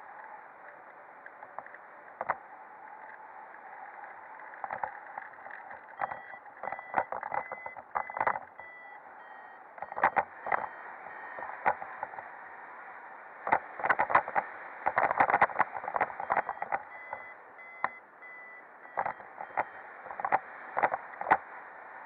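Muffled rush of air over the camera microphone in flight under a paraglider, with many sharp buffeting bumps that come in gusty clusters. A faint broken high tone sounds on and off behind it.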